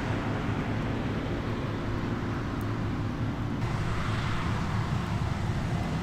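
Combine harvester running with a steady engine drone and a low hum. The sound changes abruptly about three and a half seconds in.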